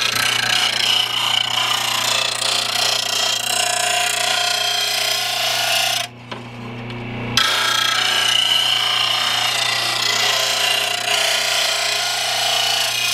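Oregon bench blade grinder's 1/3-horsepower wheel running with a steady hum while a lawn mower blade's steel edge is pressed to it, giving a loud, continuous harsh grinding. About six seconds in the blade comes off the wheel for a second or so, leaving only the motor's hum, then goes back on.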